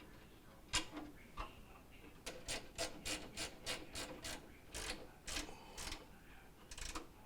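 Ratchet driver with a Phillips bit clicking, about three clicks a second in a steady run and then a few slower ones, as a microwave door-handle bolt is tightened down.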